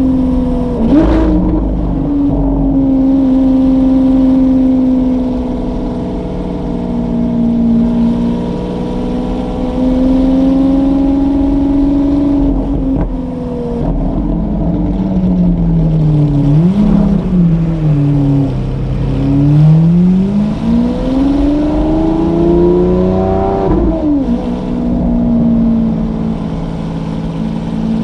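Lamborghini Aventador SVJ's V12 through a loud Novitec aftermarket exhaust, driving at low speed in traffic. The engine note sags and rises with the throttle, with a couple of quick blips. Near the end a steady pull of about five seconds rises in pitch and then drops off suddenly.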